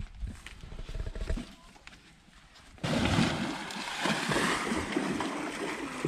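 A few low thuds in the first second and a half, then, from about three seconds in, a steady rush of sloshing and splashing water as an elephant wades in a river.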